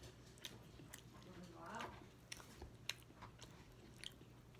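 Faint close-up chewing of a mouthful of rice-bowl food, with a few sharp clicks now and then, including a fork in the bowl near the end.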